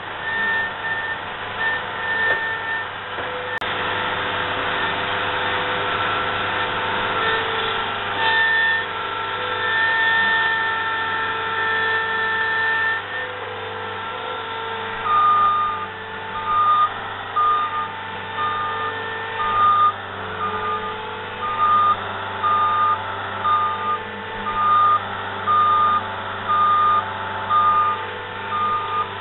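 Diesel construction machinery running, with a reversing alarm beeping about once a second through the second half. A higher-pitched tone sounds on and off in the first half.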